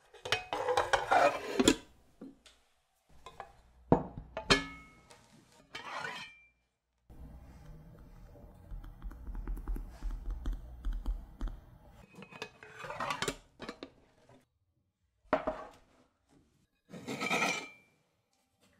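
A small square metal loaf tin being handled: its lid slides and clanks, with short metal knocks and rubs, two of which ring briefly. A steady low hum runs for a few seconds in the middle.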